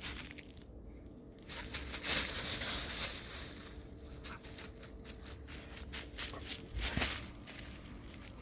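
Footsteps crunching and rustling through dry fallen leaves, in an uneven run of crackles that is loudest a couple of seconds in and again near the end.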